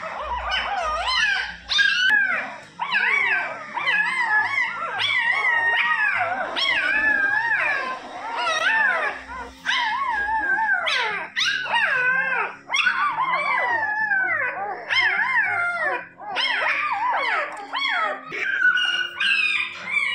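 A litter of young puppies whining and crying, many high, wavering cries overlapping with hardly a pause.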